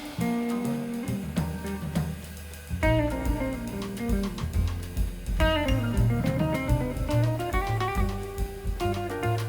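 Background music: guitar with a drum kit, a steady beat under changing guitar notes.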